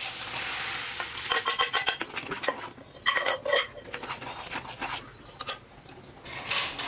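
Metal spoon stirring cooked chana dal into a hot tadka in a kadhai. A brief sizzle comes at first, then rapid clinks and scrapes of the spoon against the pan in two clusters, and a louder clatter near the end.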